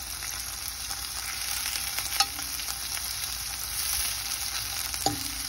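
Sliced hot dogs frying with diced onion and jalapeño in a nonstick pan, sizzling steadily. Two sharp clicks, about two seconds in and near the end, come from a fork knocking against the pan.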